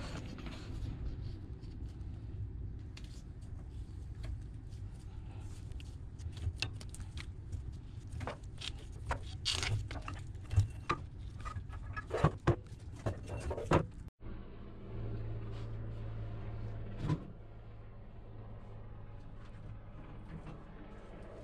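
A rubber V-belt being worked off a blower pulley by hand: scattered knocks, clicks and rubbing against the pulley and sheet-metal fan housing, over a steady low hum. The knocks come thickest toward the middle, with one more near the end.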